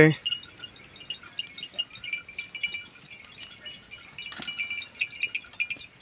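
Insects chirring steadily, with clusters of short high chirps repeating through, and a single sharp click about four and a half seconds in.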